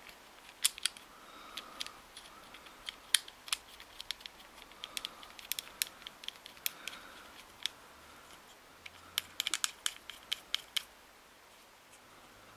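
Small irregular clicks and taps of fingers handling a Daiwa 7HT baitcasting reel's side plate and screws during reassembly, with a quick run of clicks about nine seconds in.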